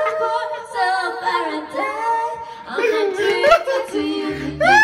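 A voice singing a song without accompaniment, with notes held and bent. A low steady hum starts near the end.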